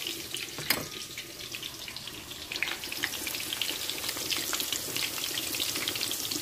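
Sliced onions sizzling and crackling as they fry in hot vegetable oil, a steady hiss with dense fine pops. A single sharp click sounds a little under a second in.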